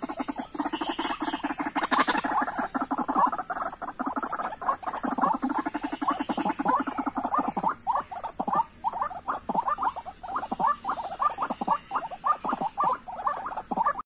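Waterhen calling in a long, fast series of croaking notes: low pulsed notes at first, then from about eight seconds in a run of rising croaks several a second. This is the dahuk call used to draw birds to the trap.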